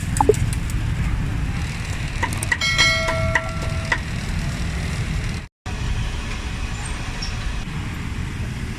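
Steady low rumble of street traffic, with a short pitched tone about two and a half seconds in, such as a vehicle horn.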